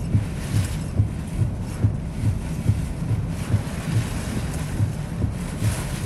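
Hurricane-force wind and driving rain on a vehicle, a rushing noise that swells and fades with the gusts. Under it runs a regular low thump about twice a second.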